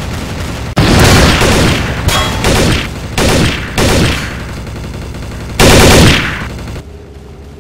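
Gunfire sound effects for a film shootout: several loud bursts of rapid automatic fire starting just under a second in, a short lull, then one last loud burst about six seconds in that fades away.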